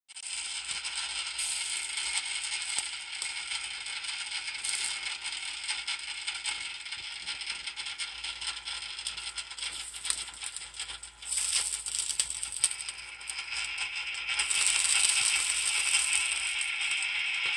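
Pork shoulder drippings sizzling and crackling on a Farberware Open Hearth rotisserie grill's glowing electric element and drip pan, a steady hiss full of small pops. The sizzle grows louder about eleven seconds in and again near the end.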